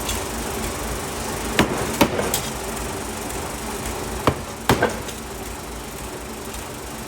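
Sharp metal knocks in the forging work, three together and then three more about two seconds later, over a steady machine hum.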